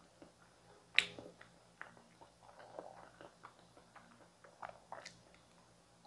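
Close-up mouth sounds of someone eating whole steamed potatoes: soft, wet chewing with scattered lip smacks and tongue clicks, and one much louder sharp smack about a second in.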